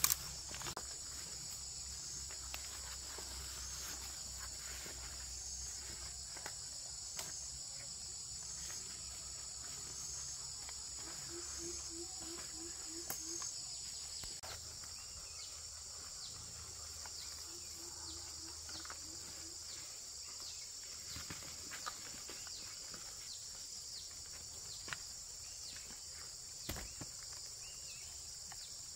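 Insects chirring in a steady high-pitched chorus. Twice a short run of low rapid pulsed notes, about six in a row, and a few faint scattered clicks.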